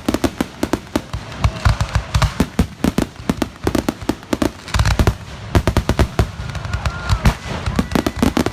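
Fireworks display: many bangs and booms in quick succession, several a second, with faint whistling near the end.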